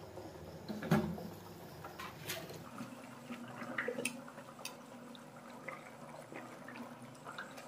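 Water boiling in a metal pot as a block of instant noodles goes in and is moved about with metal tongs, with light clicks of the tongs against the pot and a louder thump about a second in.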